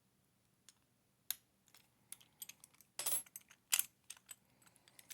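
Light clicks and taps from handling a Master Lock 410 plastic-bodied lockout padlock, with two louder rattling scrapes about three seconds in and shortly after.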